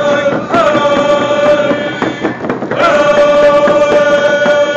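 Ahousaht (Nuu-chah-nulth) singers chanting a traditional song together, holding long steady notes, with a short break about two seconds in.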